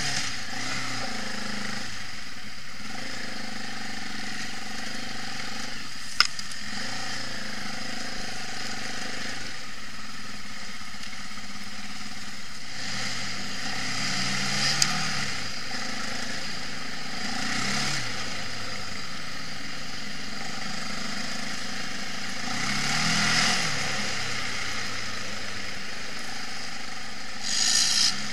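Quad bike (ATV) engine running over a rough trail, its pitch rising and falling with the throttle, under a steady rushing noise. A single sharp knock about six seconds in, and the engine gets louder with harder revving near the end.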